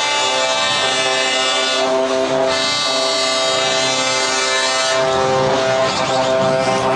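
Truck air horns blaring in long held blasts, several horns together making a steady, multi-tone chord; it breaks off briefly about two seconds in, sounds again, and stops about five seconds in.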